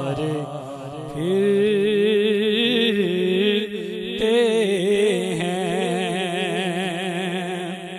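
A man's solo voice singing a naat through a microphone. He holds long, drawn-out notes that waver with vibrato, without words between them.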